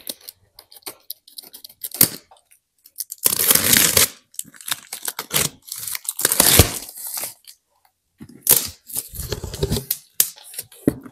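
Packing tape being ripped off a cardboard box in several long tears, the loudest a little past the middle. Plastic packing strapping is cut loose, with a sharp snap about two seconds in, and there are knocks of the box being handled.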